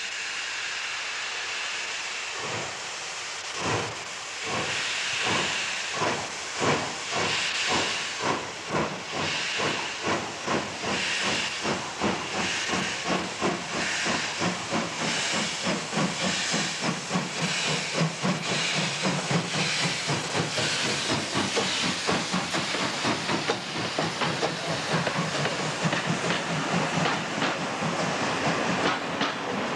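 Ty3-2 steam locomotive starting a freight train: a steady hiss of steam, then exhaust chuffs beginning about two seconds in, slow at first and quickening steadily as it gathers speed.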